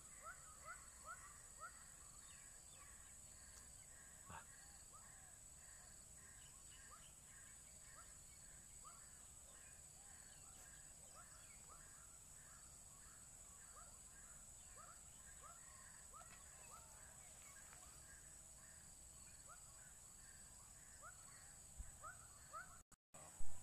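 Swamp wildlife ambience: a steady high insect drone with many short upward-sliding chirps from calling animals repeating about twice a second. A brief dropout and a single loud knock come near the end.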